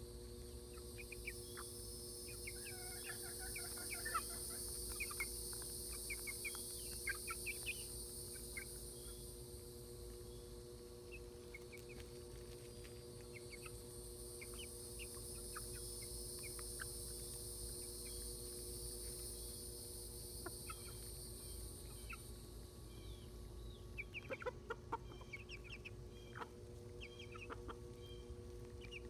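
Silkie chickens clucking and peeping in short, scattered calls while they peck, with a louder flurry of calls near the end. A steady high-pitched hiss in the background swells and fades twice.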